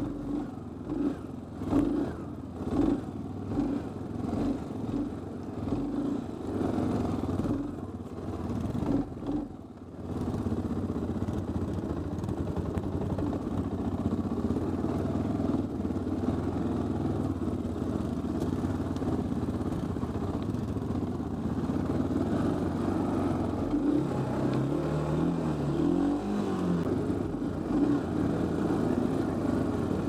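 Honda TRX350 FourTrax ATV engine running under load, its throttle opened and closed about once a second for the first ten seconds, then pulling steadily, with a brief rise and fall in revs near the end.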